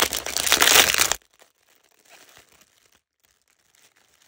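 Packaging around craft trim crinkling as it is handled. It is loud for about the first second, then stops abruptly, and a few faint crinkles follow.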